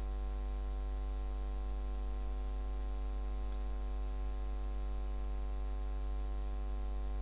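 Steady electrical mains hum with many evenly spaced overtones.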